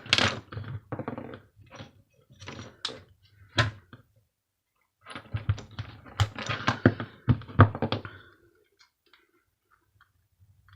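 Irregular clicks, knocks and clatter of metal parts being handled and removed from a small electric bar heater being taken apart, in two bouts with a short pause between. It goes quiet for the last few seconds.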